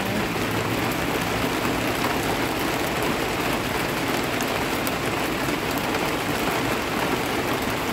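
Heavy rain falling steadily, with no wind.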